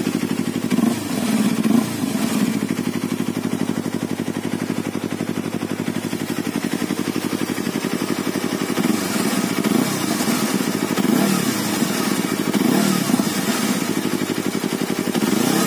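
Yamaha R25's 250 cc parallel-twin engine running through an SC Project slip-on muffler: a steady idle with a few short throttle blips, about a second in and again later on. Its note stays fairly mellow, which the owner puts down to the catalyst chamber under the engine.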